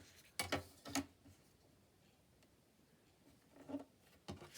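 A few brief rustles and scrapes of paper sheets being handled, with near silence in the middle.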